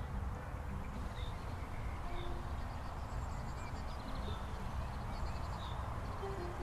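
Outdoor ambience: small birds chirping at intervals, with a couple of quick trills, over a steady low rumble.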